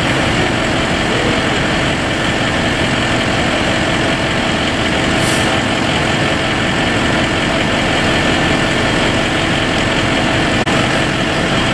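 Fire apparatus diesel engines running steadily at the fire scene, a continuous loud drone. A short hiss about five seconds in.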